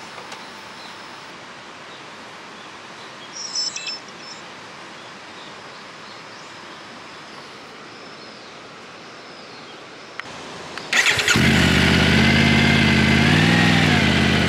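Motorcycle engine, the Triumph Tiger 900's three-cylinder, starting suddenly near the end and then running, with one rev that rises and falls. Before that there is a steady outdoor hiss and a brief high beeping about four seconds in.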